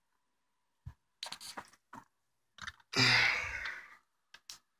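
Handling noise as a gear shifter assembly is picked up and moved: a few scattered clicks and light knocks, and a longer rustling scrape about three seconds in.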